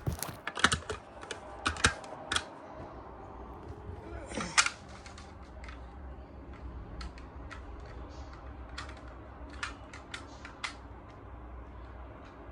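Irregular sharp clicks and taps of hard plastic parts being handled, bunched in the first couple of seconds and again later, with a brief scrape about four and a half seconds in.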